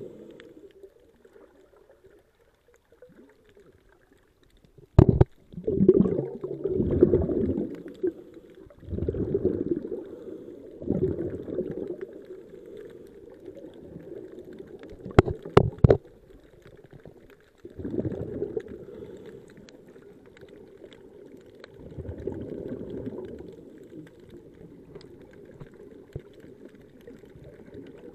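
Scuba regulator exhaust bubbles heard underwater, bubbling out in bursts every few seconds with each exhaled breath. A sharp knock comes about five seconds in, and a quick run of three about ten seconds later.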